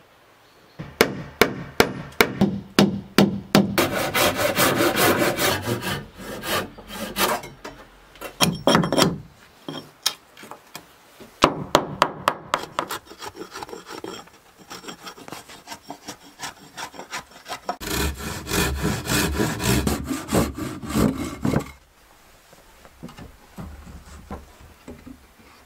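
Hatchet trimming the edge of a wooden board: runs of quick, sharp wooden knocks and scraping strokes in three bursts, with short pauses between them.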